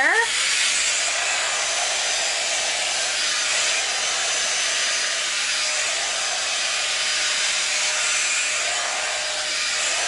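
A 5-in-1 hot air brush with its straightening brush attachment blowing steadily as it is drawn through hair: a constant rush of air with a faint motor whine.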